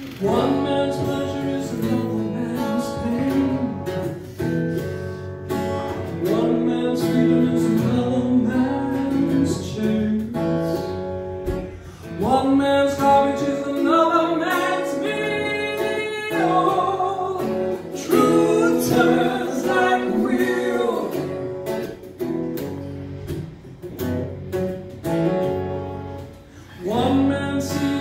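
A woman singing live into a microphone, accompanied by a strummed acoustic guitar, in phrases with short pauses between them.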